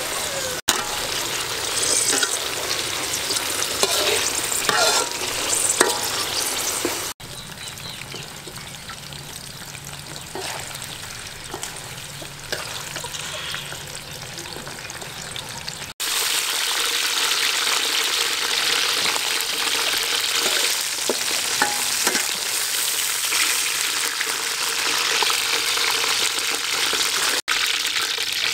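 Spiders deep-frying in hot oil in a metal wok, the oil sizzling steadily, while a metal slotted skimmer stirs them and clicks against the pan. The sizzle is quieter for several seconds in the middle, then louder again.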